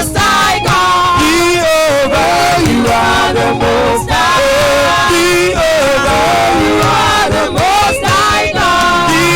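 Live praise-and-worship music with a singer's voice, sustained and wavering, over continuous accompaniment.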